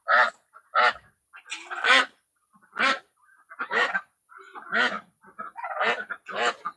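Poultry giving loud, harsh honking squawks, about one call a second, as the birds are being caught.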